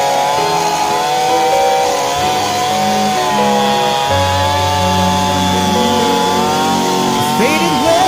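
Chainsaw running at high revs while cutting wood, its pitch wavering slightly as it loads and recovers, with a quick falling sweep near the end.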